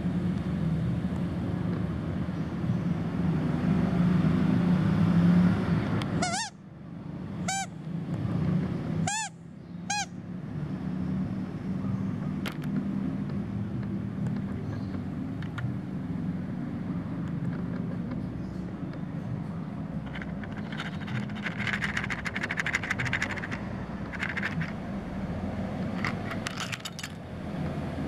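Steady low background rumble, with four short high chirps about a quarter of the way through. Near the end come light crackling and clicking as small plastic toys are handled.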